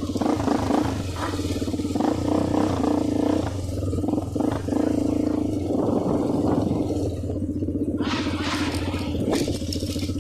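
Motorcycle engine running at a steady idle, its even firing pulses constant throughout.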